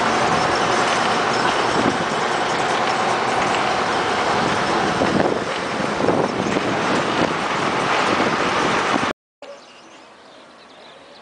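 Steady, loud noise of a vehicle in motion, engine and road and wind noise together, which cuts off abruptly about nine seconds in. A much quieter outdoor background follows.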